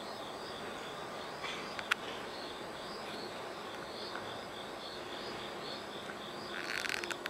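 A singing insect chirping in a steady rhythm, about two high-pitched pulses a second, over a steady background hiss. A single sharp click comes about two seconds in, and a quick run of clicks comes near the end.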